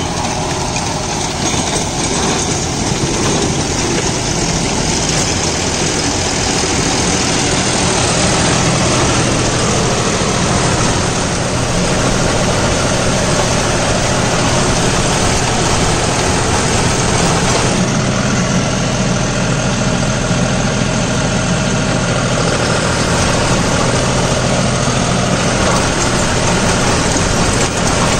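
John Deere 5405 CRDI tractor's 2.9-litre turbo-intercooled diesel running steadily under load at around 1700–1800 rpm in creeper gear. It drives a 42-blade Shaktiman Tusker rotary tiller through the PTO as it chops and churns banana plants, a dense, even noise over a steady engine hum.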